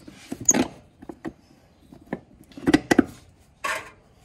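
Scattered metallic clinks and knocks from hands working at a car's tail shaft under the car, with a cluster of sharp clanks about three seconds in and a short scraping rattle just after.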